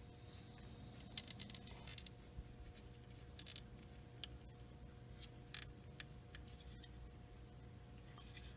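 Faint clicks and taps of fingers handling a plastic model fuselage, pressing a freshly glued seam together, over a faint steady hum.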